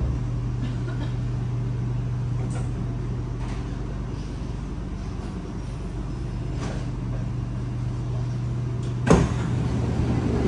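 Steady low hum inside a Kawasaki C751B metro train, with a few faint clicks. About nine seconds in there is a sharp thump, and the hum drops away; another thump comes near the end.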